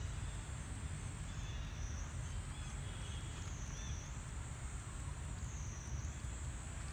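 Outdoor ambience: a high-pitched insect drone that dips and rises in pitch about every two seconds, over a steady low rumble.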